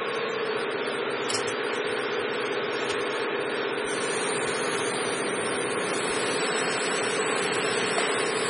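An auger powder filling machine's motor running with a steady hum that holds one tone throughout. A faint high whine joins about halfway through.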